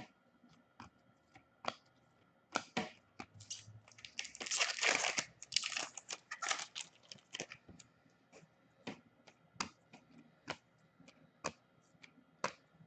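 A hockey card pack's wrapper crinkling and tearing open in a dense crackle for a few seconds midway. Before and after it come scattered light clicks and flicks of trading cards being handled and flipped through.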